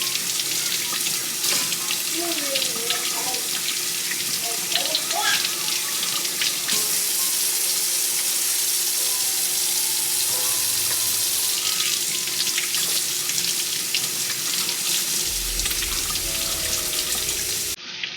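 Water running from a kitchen tap: a steady hiss with spattering crackle that stops abruptly near the end.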